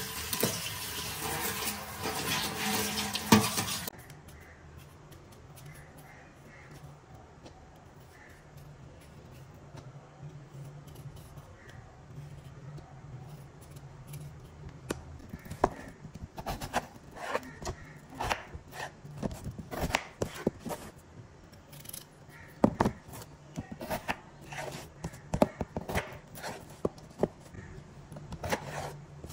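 Tap water pouring onto tomatoes and green chillies in a plastic colander, cutting off suddenly about four seconds in. Then a hand peeler scraping the skin off potatoes and a knife cutting them into chunks, with many sharp clicks and scrapes that come thicker in the second half over a low steady hum.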